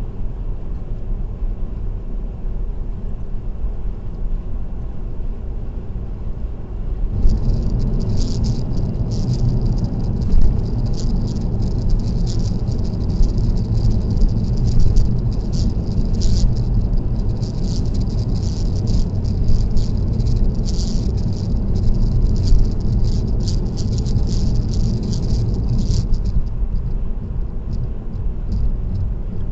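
Tyre and road noise of a car cruising on an expressway, a steady low rumble heard from inside the cabin. A fast, high-pitched rattle of something small vibrating joins about seven seconds in and stops a few seconds before the end.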